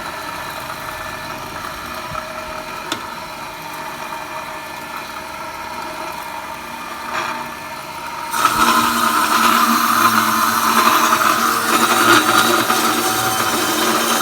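Automatic pipe-cutting machine running with a steady hum of a few tones; about eight seconds in the sound abruptly turns louder and harsher and stays so.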